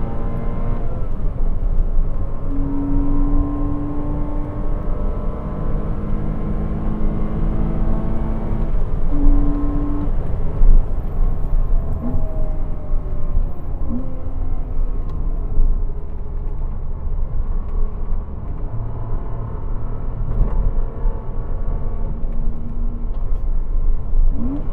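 Porsche Cayman 987's 2.7-litre flat-six running hard under load on track, heard from inside the car over a deep rumble of road and wind noise. Its pitch holds fairly steady for long stretches, with a few short rising blips of revs near the middle and the end.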